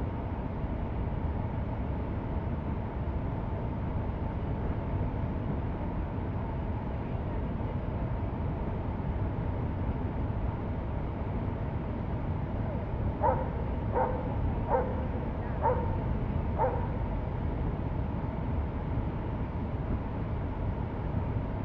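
A dog barks five times in quick succession about two-thirds of the way through, over a steady rushing noise.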